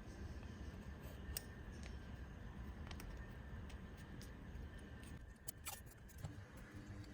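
Quiet low hum with a few light clicks and crinkles of masking tape being handled and pressed onto a plastic trim piece, and a short cluster of sharper clicks about five and a half seconds in.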